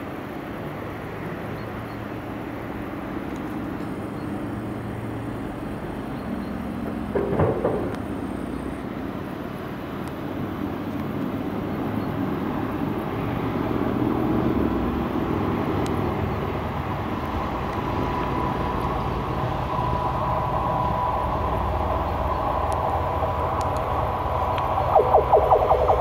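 Electric-hauled Rola freight train approaching, a rumble that grows steadily louder, with a quick rhythmic clatter near the end. A brief louder noise stands out about seven seconds in.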